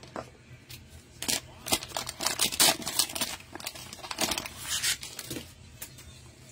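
Plastic wrapper of a cello pack of football trading cards being torn open and peeled back by hand, crinkling and tearing in a run of bursts that is loudest about halfway through.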